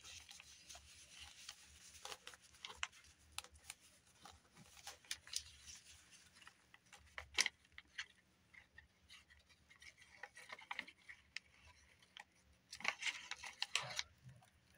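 Faint rustling and small taps as hands handle paper and thin cloth, gluing and pressing the cloth onto a journal page. There is a sharp tick about seven seconds in and a louder rustle near the end.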